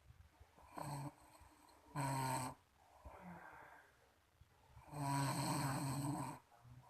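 A person snoring in uneven breaths: short snores about one and two seconds in, then a long, louder snore near the end.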